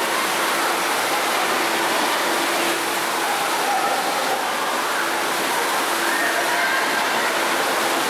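Artificial pool waterfall pouring steadily into the pool: a constant, even noise of falling water.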